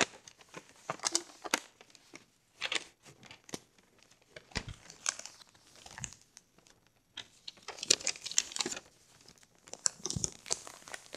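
A sheet of paper being folded and creased by hand: irregular bursts of crinkling and rustling, with a couple of soft thumps near the middle.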